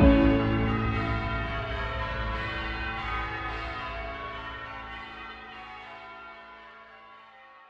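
Church tower bells ringing out: a loud stroke at the very start, then several bells' tones slowly fade to faint.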